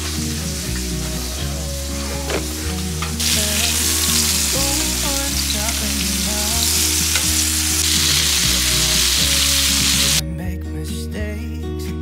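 Flour-dredged chicken cutlets sizzling as they shallow-fry in oil in a pan. The sizzle grows louder about three seconds in and cuts off suddenly near the end, with soft background music underneath.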